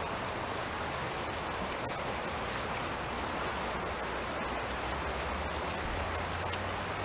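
Steady, even rushing hiss with a few faint clicks; a low hum comes in near the end.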